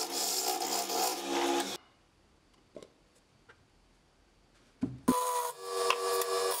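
Wood turning on a lathe: a tool cutting against the spinning workpiece, a loud scraping hiss over a steady motor hum, which stops abruptly about two seconds in. After a near-silent stretch with a few faint clicks, cutting starts again about five seconds in, at a different pitch.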